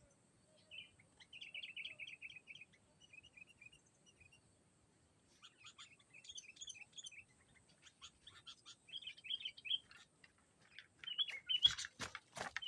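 Sooty-headed bulbul (kutilang) chattering in short repeated phrases, the calls of a decoy bird calling out to rival bulbuls. The calls come in bursts and grow louder and busier near the end.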